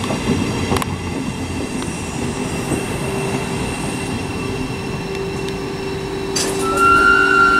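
Class 700 Thameslink electric multiple unit arriving and slowing at the platform, with a steady electric hum. Near the end, after a sharp click, a loud high tone rises in pitch and steps up.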